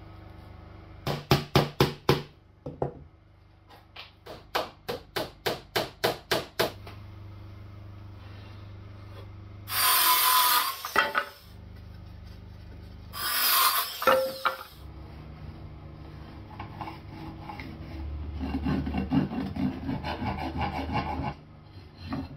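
Two runs of sharp taps on wood, then a Makita cordless circular saw cutting through a board twice, each cut lasting about a second and a half. Near the end, a steady scraping and rubbing on the wooden door.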